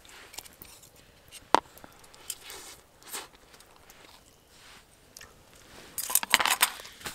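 Chewing, and a fork and knife clicking and scraping on a plate, with one sharp click about a second and a half in and a flurry of scraping near the end.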